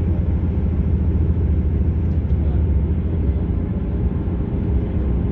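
A train running, with a steady low rumble and hum.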